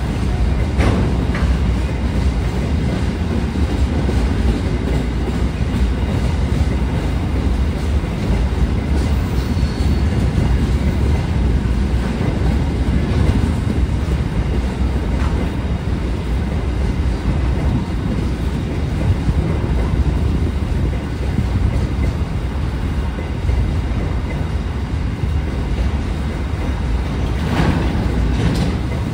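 Freight wagons of a steel train rolling past: a steady rumble of steel wheels on the rails, with a few sharper clacks about a second in and again near the end.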